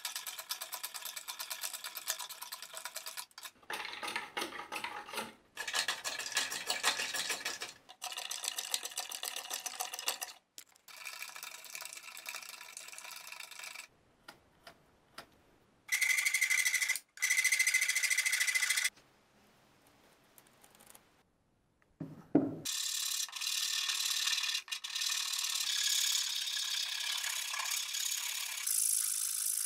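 Hand tools shaping a maple axe-handle blank: repeated scraping strokes of a hand plane across the wood, broken by short gaps, then a steady run of wood-file strokes in the last third. There is a single thump a little past the middle.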